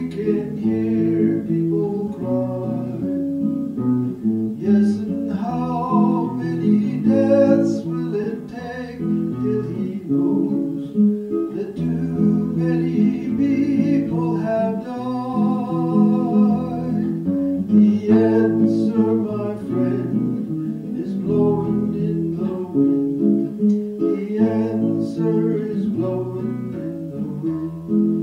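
Folk song: strummed acoustic guitar with a singer's voice.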